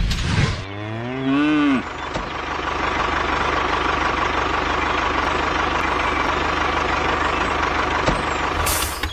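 A cow moos once, a single call that rises then falls in pitch, followed by a steady machine running noise that carries on to near the end.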